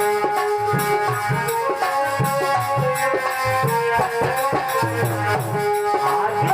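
Instrumental devotional music: held melody notes over a steady hand-drum beat and a rattling shaker.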